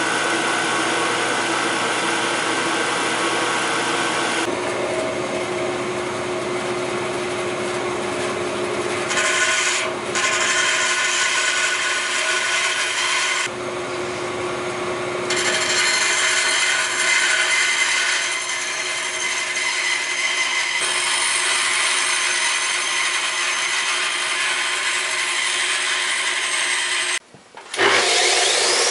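Power machines cutting and shaping a wooden pistol-grip blank: first a milling machine's cutter running through the wood, then a bandsaw cutting, the steady machine noise changing abruptly several times. Near the end it drops out briefly, then a disc sander runs.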